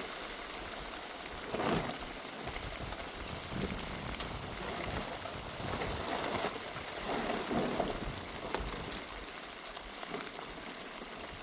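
Heavy rain falling steadily, with louder swells about two seconds in and again around seven seconds, and a few sharp ticks.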